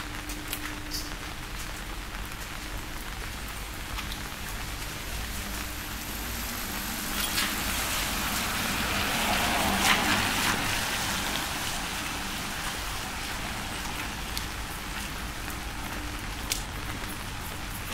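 Steady rain falling, with scattered drops ticking close by. A car passes on the wet road: its tyre hiss swells to a peak about ten seconds in, then fades.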